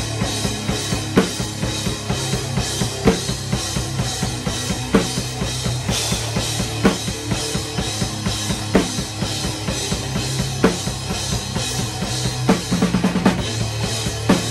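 Gretsch drum kit with Zildjian cymbals played in a slow, heavy doom-metal groove. Bass drum and constant cymbal wash run throughout, with a hard snare hit about every two seconds. A quick roll of strokes comes about twelve and a half seconds in, leading into the next big hit.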